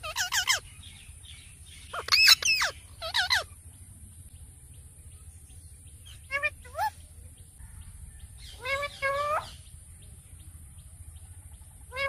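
Indian ringneck parakeets (rose-ringed parakeets) giving short, loud calls in separate bursts: at the start, around two and three seconds in, a pair around six and a half seconds, and a longer one near nine seconds, with quiet gaps between.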